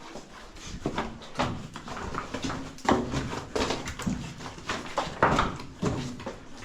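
Irregular crunching steps and knocks: footsteps on loose rock and debris.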